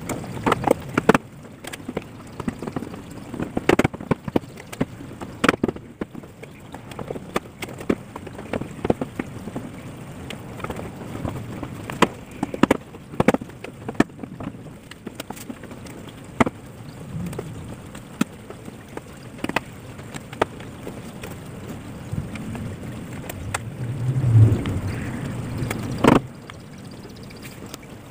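Irregular plastic clicks, taps and knocks as the front bumper and grille of a 2009 Perodua Myvi are pushed and seated into place by hand, with a brief low hum near the end.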